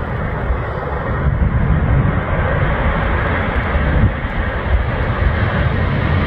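Twin jet engines of an Airbus A330-300P2F freighter at takeoff power as it rotates and lifts off: a steady, loud rumble that grows slightly louder.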